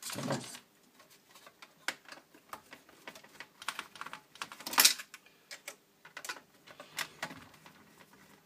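Irregular clicks, taps and light rattles of small plastic and metal parts being handled on the opened chassis of a micro hi-fi system during disassembly. There is a louder clatter at the start and another about five seconds in.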